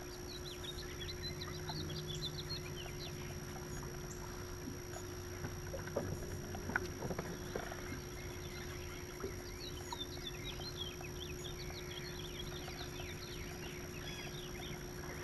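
Small birds chirping in short bursts along the shore, over a steady low hum and whine from the bass boat, with a few small clicks of rod and reel handling around the middle.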